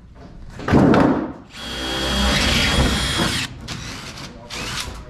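Cordless drill running steadily for about two seconds with a high whine, cutting off suddenly. Before it, about a second in, there is a loud knock, the loudest sound here.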